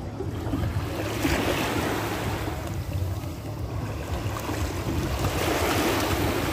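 Small sea waves washing up the shore, with wind rumbling on the microphone; the wash swells about a second in and again near the end.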